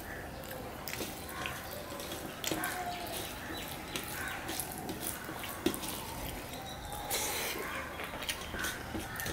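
Eating by hand: fingers mixing and kneading rice and curry on a steel plate, along with chewing, heard as an irregular run of small wet clicks and squelches.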